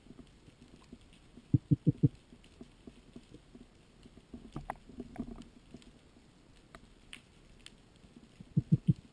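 Underwater sound picked up by a speargun-mounted camera: scattered crackling clicks throughout, and two quick runs of four low thumps, one about two seconds in and one near the end.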